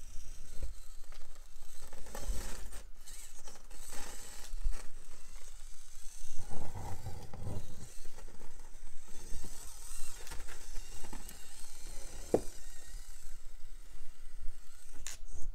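Micro RC rock crawler with a brushed motor working slowly over a rock course: the motor and gears whir in short bursts as the tires scrape and scrabble on the rocks. A sharp click or knock about twelve seconds in.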